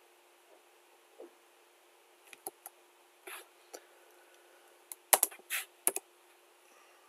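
Computer keyboard keystrokes: a few scattered taps, then a quicker cluster of louder clicks about five seconds in.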